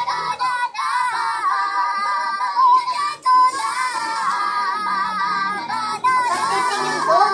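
Several voices, young women and a small boy, singing a very high-pitched melody on nonsense "ba ba ba" syllables, the pitch bending up and down continuously.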